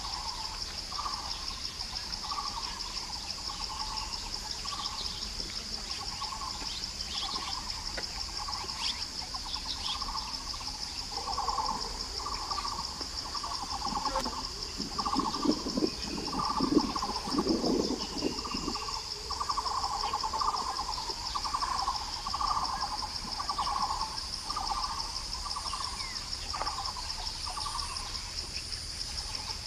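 A barbet calling, a long monotonous series of hollow repeated notes at about one and a half a second, over a steady high insect drone. A louder low sound rises for a few seconds about halfway through.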